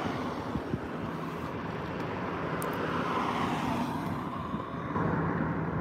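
Road traffic: a car passes close by, swelling and fading about three to four seconds in, over steady traffic noise and a low engine hum.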